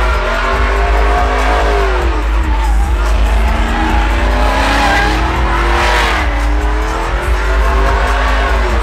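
Lowered Chevrolet Silverado pickup doing donuts: its engine is held high, the revs dropping and climbing again several times, over the steady squeal of spinning rear tyres.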